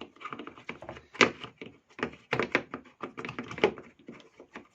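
Irregular clicks and knocks of small hard parts and tools being handled while an electric chainsaw is worked on, two of them sharper and louder, about a second in and near three and a half seconds.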